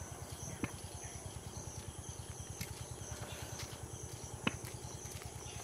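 Insects chirring steadily in high pitches, with a pulsing chirp repeating through it. Two sharp taps sound, one under a second in and one about four and a half seconds in.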